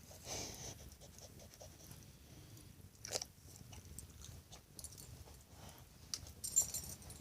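Wood fire crackling in a fireplace: irregular pops and snaps over a low steady hiss, with the loudest cluster of pops a little after six seconds in.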